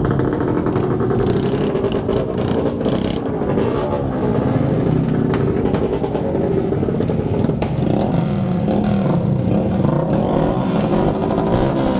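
Many motorcycle engines running and revving at close range, loud and overlapping, with a cluster of sharp cracks a second or two in.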